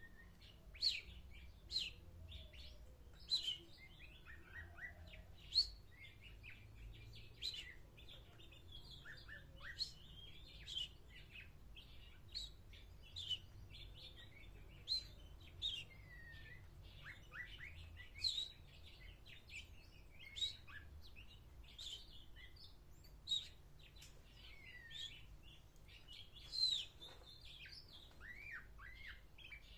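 A sparrow and another small bird chirping: short, sharp chirps coming about once a second, with some quicker twittering near the end.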